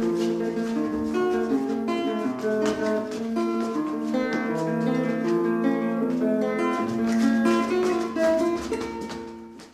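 Acoustic guitar music: a plucked melody over steady held notes, fading out near the end.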